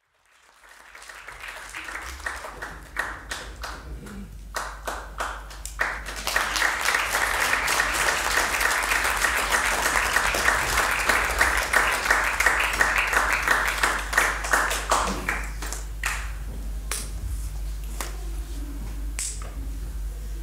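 Audience applause that builds over the first few seconds, is dense for several seconds, then dies away to a few scattered claps near the end.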